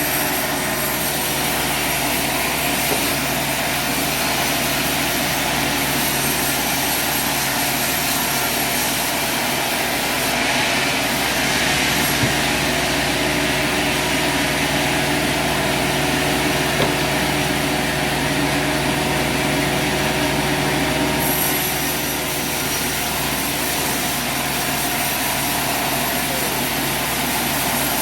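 Sawmill engine running steadily at a constant speed. The tone of its higher sound shifts about a third of the way in and again about three quarters of the way through.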